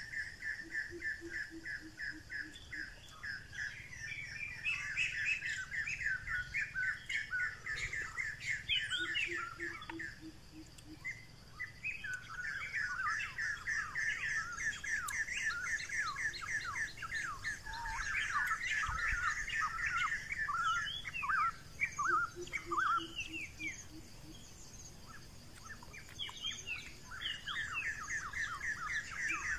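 Forest birds chirping and calling in rapid repeated notes and quick down-slurred whistles, over a steady high hiss. A short, low pulsing call breaks in now and then, about four times.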